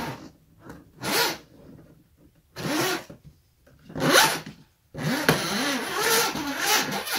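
Truck camper lift cable being dragged out of its tube by hand, rubbing and scraping in four pulls. The first three are short and the last runs about two seconds, with a squeak that bends in pitch.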